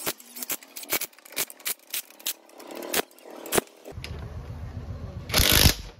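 A string of sharp clicks and clinks, then a cordless impact wrench running in one short burst of about half a second near the end, driving in a clutch-cover bolt on a motorcycle engine.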